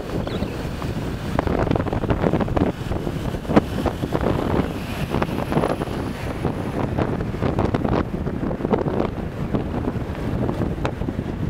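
Wind buffeting the microphone of a camera riding on a moving bike, a gusty rumble with road noise beneath it.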